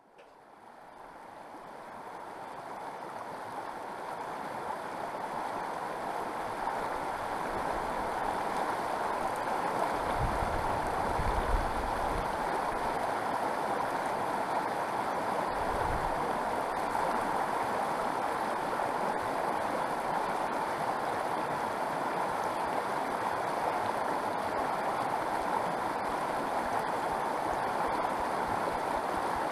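Fast, shallow mountain creek rushing over rocks, a steady rush that fades up over the first few seconds and then holds. A few brief low rumbles come in around ten to twelve seconds in.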